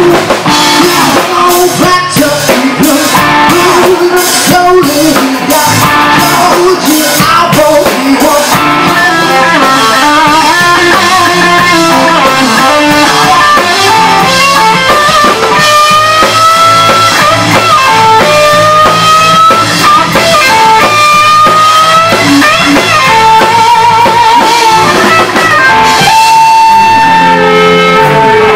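Live rock band playing loudly: a male singer's voice over electric guitar and drum kit. Later on the singer holds a long, wavering note.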